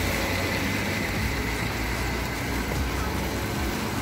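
Steady traffic noise from cars driving on a rain-wet road, an even hiss with a low rumble underneath.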